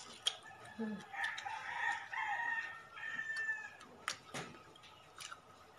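A rooster crowing once: a long crow starting about a second in and lasting around two seconds, with a few short sharp clicks around it.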